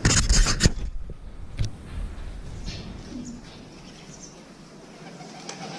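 Feral pigeons cooing in a shed, after a brief burst of rustling handling noise at the start and a single sharp click about a second and a half in.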